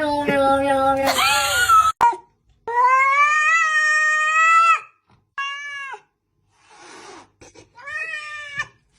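A cat yowling in long, drawn-out meows: four or five calls, the longest about two seconds, with short silent gaps between.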